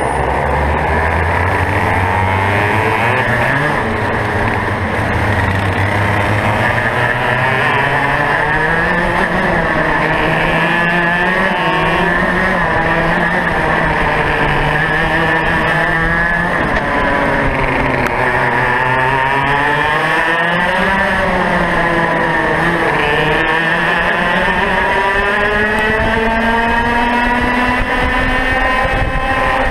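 Two-stroke racing kart engine heard from on board the kart. Its revs climb in steps over the first several seconds, then rise and fall again and again as the kart accelerates and slows through the corners.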